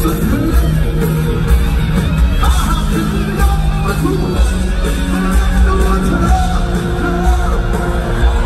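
Rock band playing live in an arena: electric guitars, bass and drums with a singer, heard from the audience through the hall's PA.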